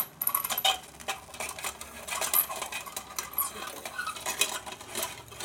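Small camping frying pan being handled: its metal folding handle and the pan clink, click and scrape in an irregular run as he works at the handle, which has jammed.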